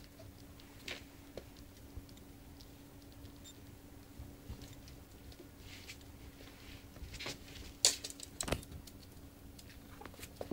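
Faint rustling and scratching of puppies moving on a towel in their bed, with scattered small clicks and a few sharper ones about eight seconds in, over a steady hum.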